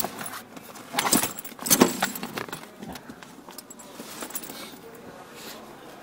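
Hands rummaging in a backpack, small hard things inside rattling and clinking in two loud flurries about one and two seconds in, then a few scattered clicks.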